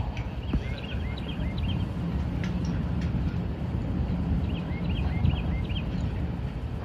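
A small bird singing two runs of quick, repeated chirps, about a second in and again about five seconds in, over a steady low rumble.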